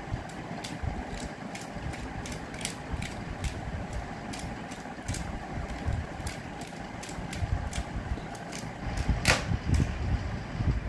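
Plastic Pyraminx puzzle being turned quickly by hand, its layers and tips clicking several times a second during a timed speed-solve. One louder clack comes about nine seconds in.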